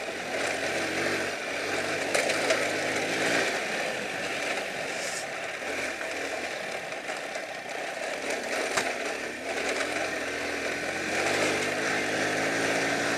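Honda C90's single-cylinder four-stroke engine running steadily with the bike under way.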